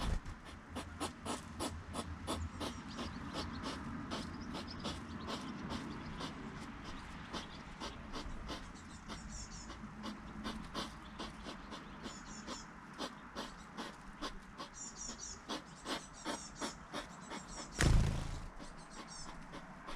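Hedgehog chewing sunflower seeds: a fast, uneven run of crunching clicks, a few a second. There is one louder thump near the end.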